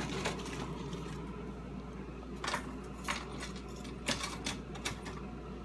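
Ice being broken up with a knife sharpener: about five sharp knocks and cracks, spaced unevenly, from about halfway through.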